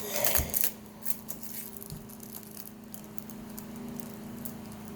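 Light clicks and rattles of plastic toy parts and packaging being handled, busiest in the first half-second and then sparse, over a steady low hum.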